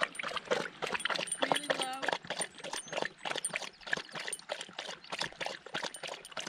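Labrador lapping water from a small rocky stream: a quick, irregular run of wet laps over the trickle of the water. A short wavering pitched sound, a voice or call, comes about a second and a half in.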